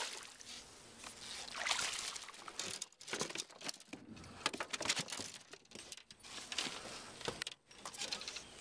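Irregular splashing and dripping with scattered clicks and clatter: a hooked largemouth bass churning the surface beside a boat and being lifted aboard by hand.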